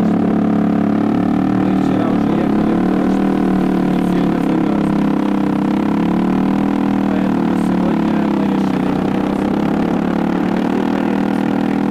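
Motorcycle engine running at a steady speed under a rider and pillion passenger, with wind and road noise.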